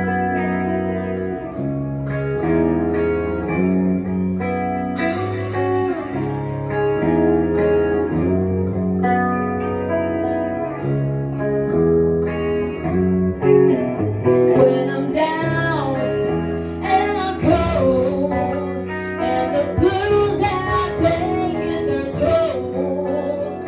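Guitar playing a song's opening chords at rehearsal, with a singer's voice coming in about halfway through.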